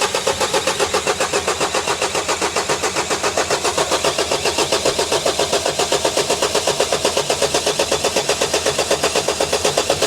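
Vauxhall Vivaro diesel engine being cranked on the starter motor without firing, with a steady, even, rapid pulsing. It cranks but will not start because the immobiliser is not reading the key, so no diesel is delivered.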